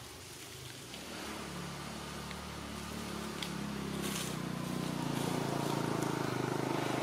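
A motor vehicle's engine droning steadily, growing louder as it comes nearer.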